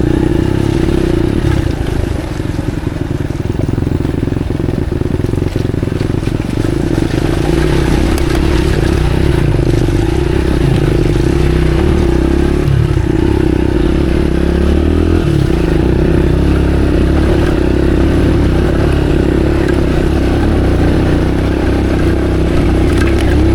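Motorcycle engine running as it rides along a rough dirt road, steady for most of the time, with the revs dipping and then rising about halfway through.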